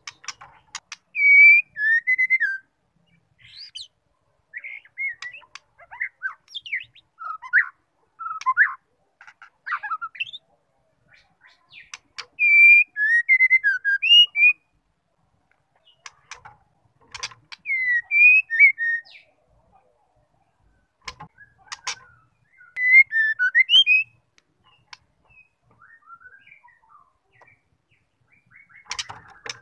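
Female white-rumped shama singing: short whistled phrases of rising and falling notes, each a second or two long, separated by pauses, with sharp clicks in between.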